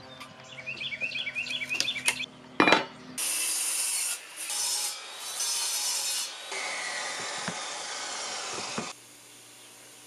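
A pencil scratches marks on plywood, with a couple of sharp clicks. From about three seconds in, a loud, hissy power saw cuts through plywood in several abruptly spliced stretches, cutting off sharply near the end.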